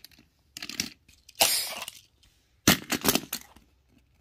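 A short breathy burst of noise, then a quick run of sharp clicks and knocks as small die-cast toy cars are handled and tipped over on a book.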